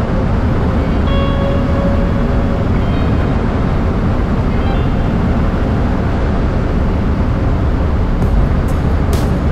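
Steady drone of a Cessna 172's four-cylinder piston engine and propeller in level flight, heard inside the cabin. A few faint clicks come near the end.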